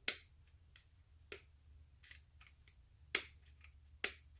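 Sharp metallic clicks and ticks of wire cutters, used as pliers, working a steel roll pin into a Volkswagen Beetle door-lock housing. There are three loud clicks and one smaller one, with fainter ticks between them.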